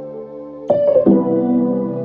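Background music: sustained electric piano or keyboard chords, with a new chord struck under a second in.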